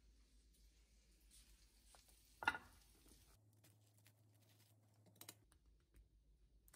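Mostly near silence with small kitchen handling sounds: one sharp clack about two and a half seconds in, then a few faint light taps as toast is handled with wooden chopsticks and a wooden spoon.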